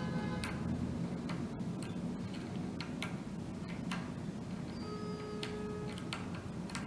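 Small screwdriver turning a screw through a rubber phone case into a plastic plate: light clicks and ticks at irregular intervals, over faint background music.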